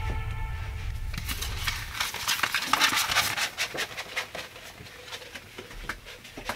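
Closing background music dies away, then quick, busy clinking and clattering of cups, dishes and small objects being handled and cleared off a desk, thinning out toward the end before cutting off.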